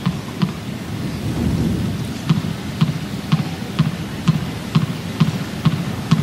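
Tennis ball bounced repeatedly on the court by the server before serving, sharp knocks about two a second with a short pause near the start, over a steady low murmur of the arena crowd.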